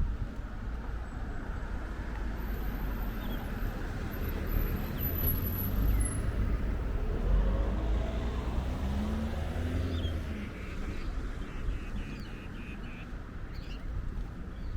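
A motor vehicle passing on a street, its engine and tyre noise swelling about halfway through and then fading.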